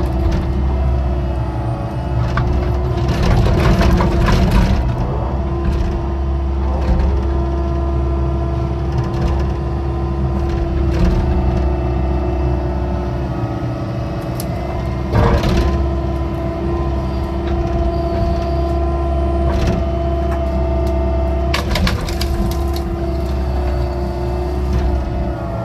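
Excavator engine running steadily under load while digging a ditch. Sharp cracks and knocks from the bucket working through soil come a few seconds in, again about midway, and once more past two-thirds of the way.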